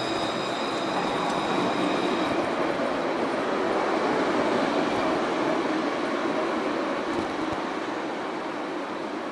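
A tram rolling past close by on a curve, steel wheels on rails. A faint high squeal from the wheels dies away about two seconds in, leaving a steady rumbling rush that eases off near the end.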